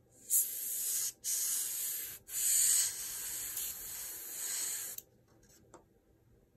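Airbrush spraying paint, a high hiss of air in three spells separated by two brief pauses about one and two seconds in, cutting off sharply about five seconds in.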